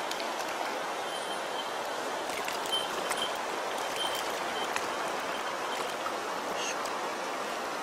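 Mountain stream running steadily over shallow rocky riffles, with a few faint short high chirps and ticks on top.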